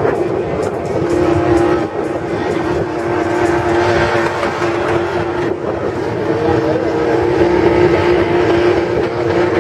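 Drift cars spinning their tyres in burnouts, one engine held at high revs in a single steady note from about a second in, over the hiss of spinning tyres.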